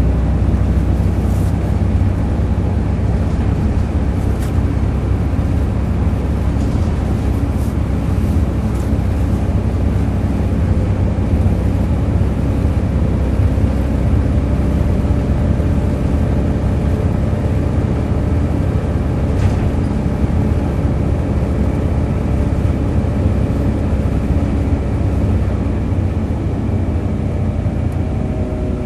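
Volvo B7RLE bus's six-cylinder diesel engine and drivetrain running steadily under way, a continuous groaning drone of even tones with a few light rattles in the first several seconds. Its pitch shifts slightly near the end.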